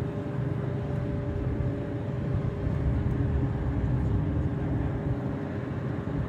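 Jet airliner engines, a steady low rumble with a faint steady whine above it.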